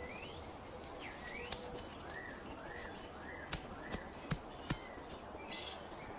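Birds calling in a forest: a few rising whistled notes, then a run of four short arched notes. Several sharp clicks or knocks come around the middle, over a faint high pulsing tone.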